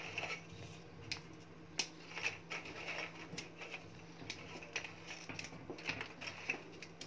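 Plain dry biscuits being snapped into large pieces by hand: a string of irregular, crisp snaps and crackles.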